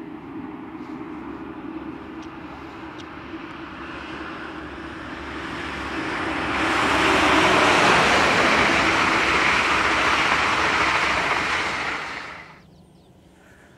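Diesel locomotive with passenger coaches approaching with a steady engine drone that grows louder, then a loud rush of engine and wheels on rail as the train passes close by from about halfway. The noise falls away sharply shortly before the end.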